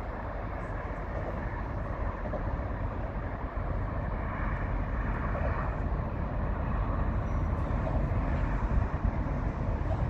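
Steady low rumble of traffic noise, with no distinct engine note or clicks, growing somewhat louder partway through.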